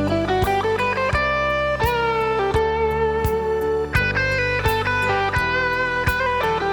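Instrumental break of a country-and-western song: a lead guitar plays sustained, sliding melody notes over a steady drum beat and bass.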